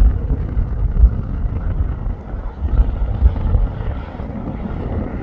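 Low rumble of a jet airliner on its landing approach, with gusty wind buffeting the microphone in uneven swells.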